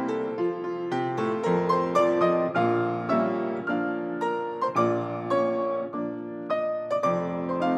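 Solo piano playing ballet-class accompaniment for a barre exercise: a steady flow of notes and chords with a regular beat.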